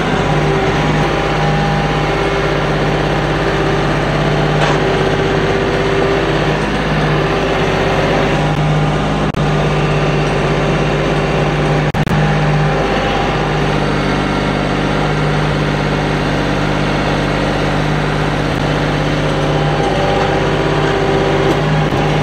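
Kioti NS6010 HST compact tractor's diesel engine running steadily while the tractor drives and works the front loader, with a couple of brief clicks near the middle.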